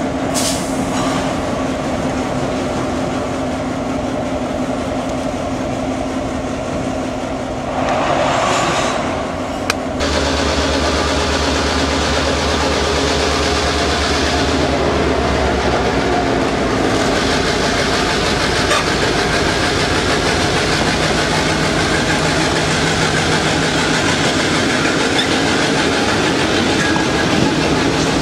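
Vermont Railway diesel locomotive running as it hauls a train of tank cars slowly past, with a steady engine note and the rumble of the train rolling by.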